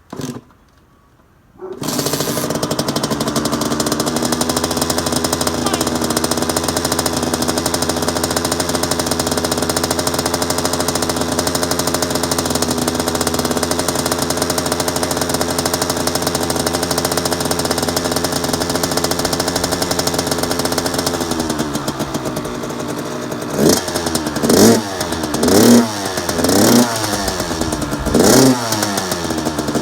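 2017 Kawasaki KX100's two-stroke single-cylinder engine starting about two seconds in and idling steadily. Over the last several seconds it is revved in a series of short throttle blips, about one a second.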